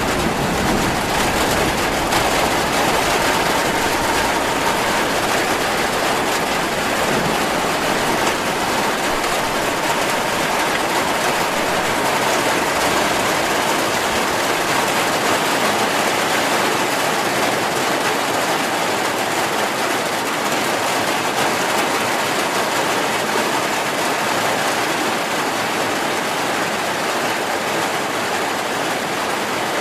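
Heavy rain falling, a steady, even hiss without breaks. The deep rumble beneath it fades over the first half.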